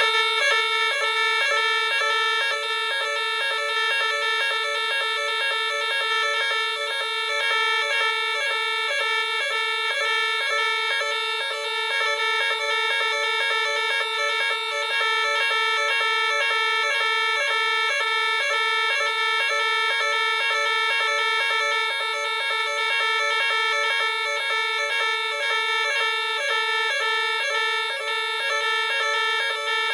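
Merlin Gerin 57041 electronic fire alarm sounder switching on abruptly and sounding the French NF S 32-001 evacuation tone, a short higher note followed by a longer lower one, repeating steadily about twice a second. It is driven by a Nugelec type 4 alarm panel under test.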